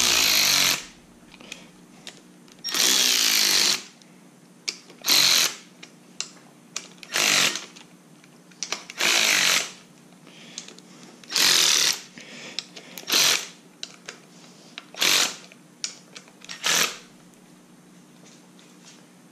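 Cordless electric ratchet running in short bursts, about nine times, roughly every two seconds, as it drives down the valve cover bolts on an LS 5.3 V8.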